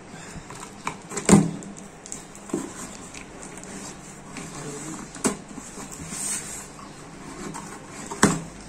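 Cardboard shipping box being cut open with scissors and its flaps pulled apart: irregular scrapes, snips and knocks, the loudest about a second in and another near the end.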